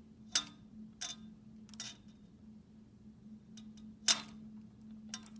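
Sharp clicks of marbles knocking together as a ruler pushes a row of them: three light clicks in the first two seconds and a louder one about four seconds in, over a faint steady hum.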